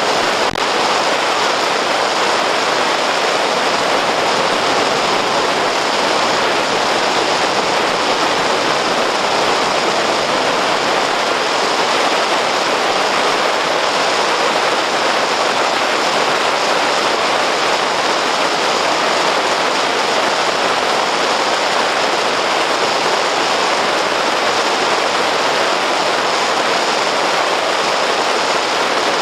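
Steady, even rushing noise inside a moving car on a snowy road, picked up by a dashcam's microphone.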